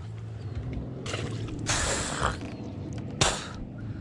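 Fishing reel being worked with ratchet-like clicking while a hooked bass is fought on light 8-pound line. Three short rushes of noise break in, the longest and loudest about two seconds in, over a low steady hum.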